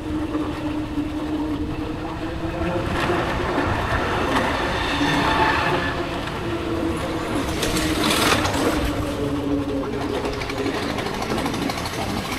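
Road noise heard while riding: wind, tyres and passing traffic, with a steady hum throughout. Louder swells come about three seconds in and again around eight seconds, as vehicles go by.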